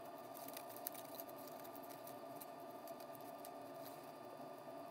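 Faint rustling and crinkling of a spiral-cut paper strip being rolled up between the fingers: many small irregular ticks over a steady low hum.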